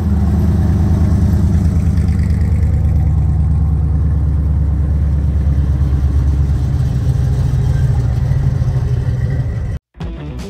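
Classic American muscle car engines running with a loud, deep, steady exhaust rumble as the cars roll slowly past. The rumble cuts off suddenly near the end, and rock guitar music starts.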